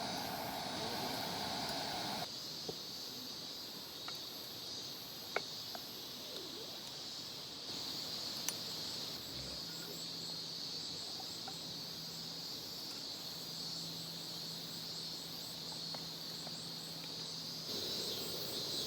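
Steady high-pitched chorus of insects trilling in late summer, with a few faint clicks. A lower rumble stops about two seconds in, and a low even hum sits underneath from about halfway through.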